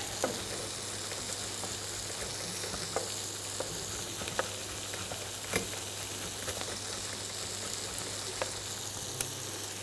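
Tomato sauce sizzling in a frying pan on an induction hob: a steady, even hiss, with a low hum underneath. A few faint ticks stand out now and then, from the grater work at the board.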